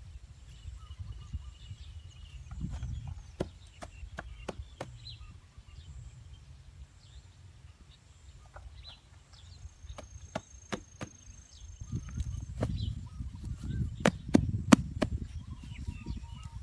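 Sharp knocks and snaps from hand work on soil and grass: a few around four seconds in, more around ten seconds, and a louder cluster near the end, over a low rumble with faint bird chirps.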